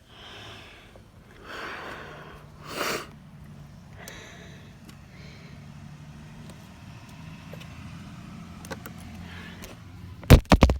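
Hands rustling and scraping against car seat upholstery while groping for the child-seat latch anchors, in a few noisy swells, then a quick run of loud sharp knocks just before the end.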